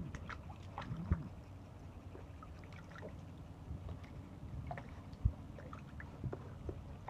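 German Shepherd puppy pawing and splashing water in a plastic tub: small irregular splashes and sloshing, with a few sharper knocks against the tub near the start, about a second in and a little after five seconds.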